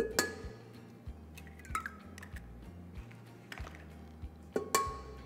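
Eggs knocked against the rim of a stainless steel mixing bowl to crack them: two sharp knocks, one at the start and one near the end, each leaving the bowl briefly ringing, with lighter shell clicks between. Background music runs underneath.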